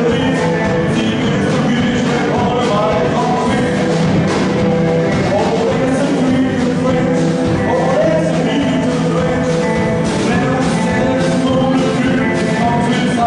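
A rock band playing live, with a full band sound over a steady drum beat.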